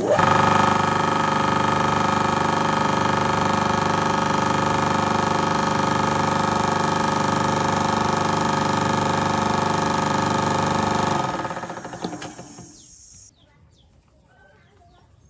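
Electric motor driving a centrifugal water pump through a jaw coupling, switched on and coming straight up to a steady, loud running hum with a whine. About eleven seconds in it dies away over roughly two seconds.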